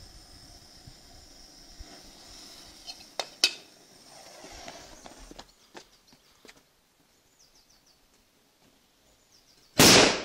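A Mefisto Manna firecracker going off with one very loud bang near the end, after a couple of sharp clicks about three seconds in.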